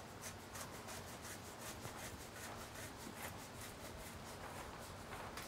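Faint, quick run of scratchy rubbing ticks, several a second: a Teflon-taped PVC union being screwed hand-tight onto the pond pump's plumbing, plastic threads rubbing as they turn.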